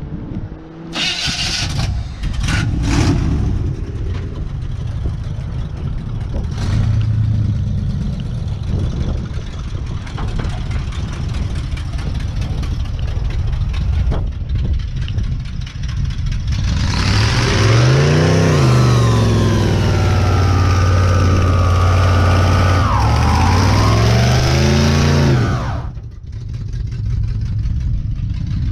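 Chevrolet C10 pickup's engine idling with a low rumble, then about seventeen seconds in it revs hard for a burnout, rear tyres spinning, the engine pitch climbing and falling for some eight seconds before it drops abruptly back to idle near the end.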